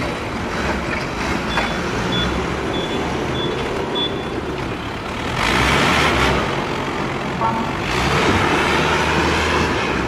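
Forklift engine running in the yard, with five short high beeps of a reversing alarm, about two a second, a couple of seconds in. A louder rush of noise swells briefly around the middle.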